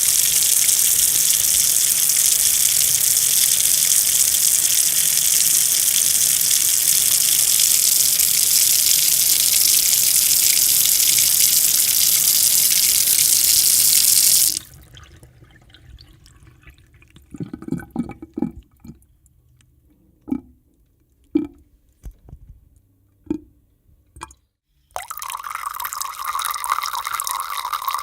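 Household water tap running in a full, steady stream, shut off suddenly about halfway through. A few separate drips follow, then the tap runs again near the end with a thinner, higher sound.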